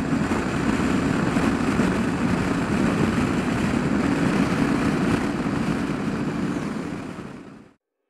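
KTM 1290 Adventure's V-twin engine running at a steady cruise, mixed with wind and tyre noise as the motorcycle is ridden. The sound fades out near the end.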